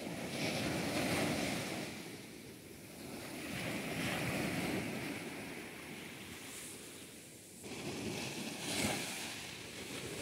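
Sea surf breaking in the shallows: a rushing wash of water that swells and fades about every four seconds as each wave comes in.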